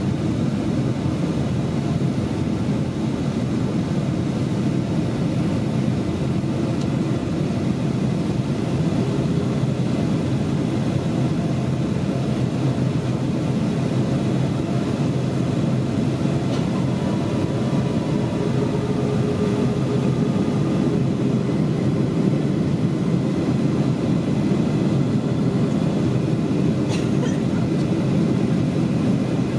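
Steady cabin roar inside a Boeing 757-200 in flight: its Rolls-Royce RB211 engines and the rush of air, heard from a window seat. A faint tone comes and goes about halfway through, and there is one short click near the end.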